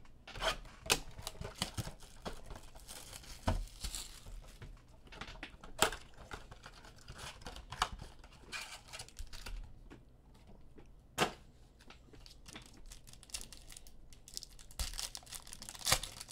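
Hands tearing open a cardboard retail blaster box of Mosaic basketball cards, then handling and crinkling the foil card packs taken from it. The rustling is broken by a few sharp snaps and rips.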